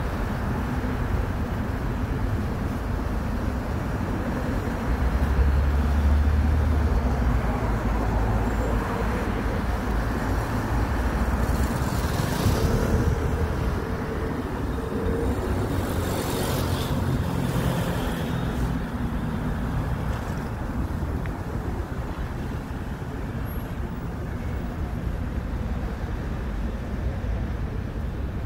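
Steady city road traffic passing on a wet street, with a deeper rumble swelling about five seconds in and brief hisses near the middle.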